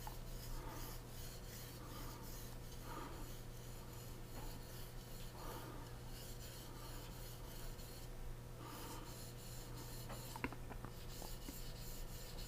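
Steel knife blade being stroked along a Japanese natural whetstone, a faint, soft rubbing scrape repeated in slow strokes as the edge is sharpened.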